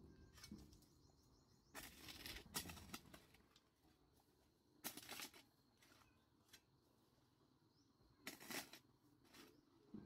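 Faint strokes of a hoe chopping and scraping into clay soil: about four short scrapes a couple of seconds apart, with small clicks of clods between them.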